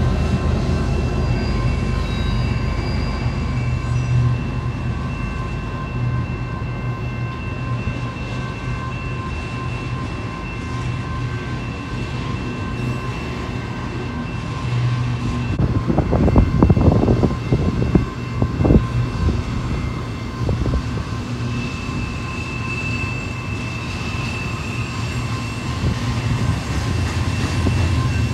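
Freight train passing: diesel locomotives droning low and steady, with thin steady high tones from the wheels on the rail. The sound grows louder and rougher for a few seconds about two-thirds of the way through.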